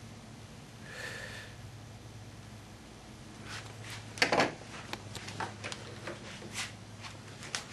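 Quiet workshop handling sounds over a low steady hum: a small tool set down on a wooden workbench with a knock about four seconds in, followed by a few lighter knocks and clicks.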